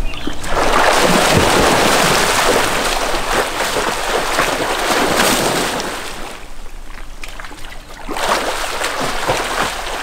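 A swimmer swimming freestyle: arm strokes and flutter kick splashing and churning the pool water. The splashing eases off for a couple of seconds about six seconds in, then picks up again.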